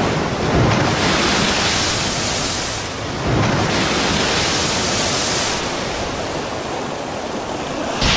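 Heavy sea surf breaking over a rocky shore: two big surges of hissing spray, about a second in and again at about three and a half seconds, followed by a lower, steady wash of churning water.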